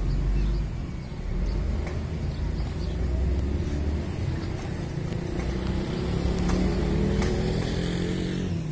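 A motor vehicle engine running close by over a steady low rumble, its pitch rising slightly in the second half. A few light clicks are heard.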